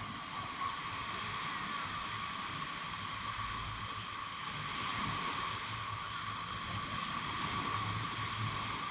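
Ocean surf washing onto a beach: a steady rushing wash that swells a little about five seconds in and again near the end.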